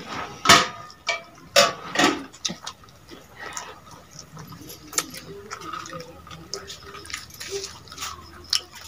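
Close-up chewing and crunching of fried cauliflower pakoras, with mouth clicks. The loudest crunches come in the first two seconds, and scattered softer ones follow.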